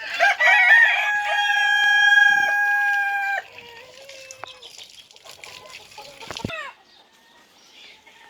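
A rooster crowing: one long, loud crow held for about three seconds, followed by quieter clucking from the flock.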